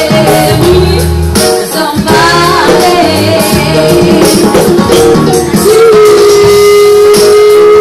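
Live jazz trio: a woman singing with electric keyboard and electric bass backing. She holds one long, steady note through the last two seconds.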